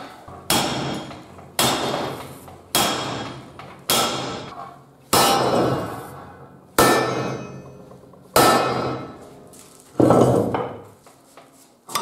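Hammer blows on a warped welded steel piece to straighten it: seven sharp, ringing metal strikes about a second or so apart, each dying away before the next. Near the end comes a longer, rougher noise with no sharp strike.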